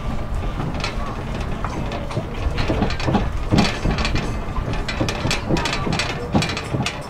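DOTTO road train running, heard from aboard: a steady low rumble with frequent short rattles and clicks from the carriages.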